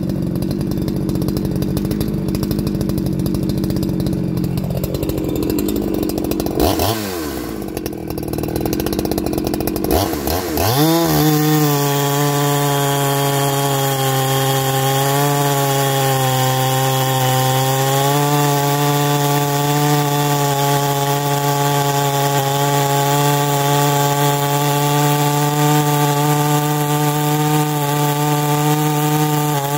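Clone chainsaw with a 36-inch bar and full-chisel chain cutting a green hardwood log. It runs under load at first, its revs fall away about seven seconds in, then it is throttled up about ten seconds in and held at a steady high pitch with slight dips as it works through the wood.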